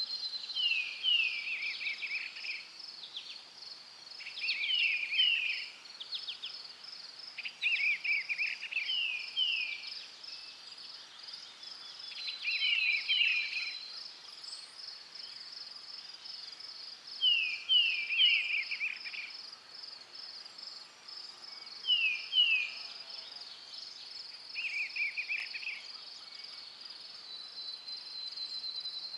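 Forest ambience: a songbird repeating short phrases of two or three quick down-slurred whistles every few seconds, over a steady, rapidly pulsing high-pitched insect trill.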